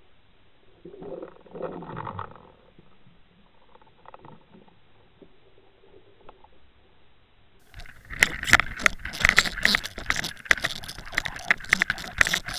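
Underwater sound close to a pike striking an umbrella rig. A few muffled swishes and knocks come first. From about eight seconds in there is a loud, dense rattling and knocking as the fish seizes and shakes the rig.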